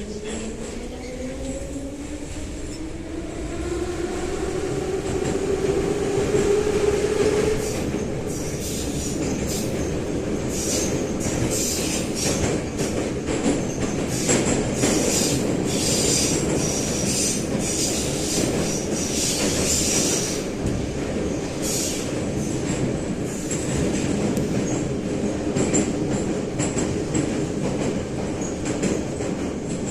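Inside a St Petersburg-built 81-717-type metro car pulling away: the traction motors and gears whine, rising in pitch for the first eight seconds or so as the train accelerates. Then the car runs at speed through the tunnel, with a loud rumble and rattle and bursts of high wheel squeal.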